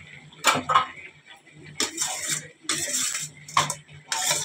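A metal utensil scraping and stirring raw chicken pieces and tomatoes in a steel kadhai, in about six short scrapes. A low steady hum runs underneath.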